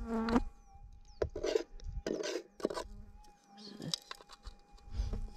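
Flies buzzing, with a faint steady tone underneath and a few short scratchy noises.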